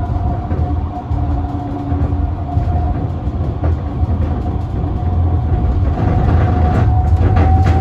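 Electric tram running along street track, heard from inside at the front: a steady low rumble of wheels on rails with a thin whine that rises slowly in pitch, and scattered clicks. It grows a little louder near the end.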